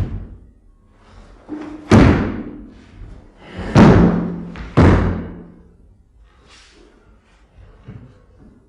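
A series of heavy thuds: about five in the first five seconds, each with a short booming ring-out. Two come close together near two seconds in, and fainter knocks follow near the end.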